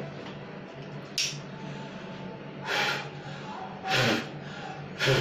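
A person blowing hard through an N95 mask at a lighter flame: three forceful puffs of breath, one after another about a second apart. A lighter clicks about a second in.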